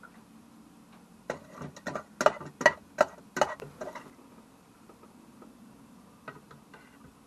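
A serving spoon knocking and scraping against a bowl and the metal pot of a thermal cooker as rice and curry are dished up: a quick run of sharp clicks and knocks about one to four seconds in, then a few lighter taps near the end. A faint low hum runs underneath.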